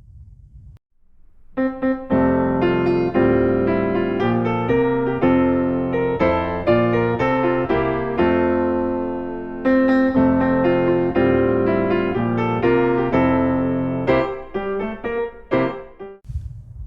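Piano music: a melody of struck notes over chords, starting about a second and a half in and stopping just before the end.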